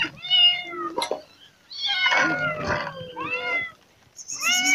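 Several cats meowing for food, about four loud meows in a row, with two cats calling over each other partway through.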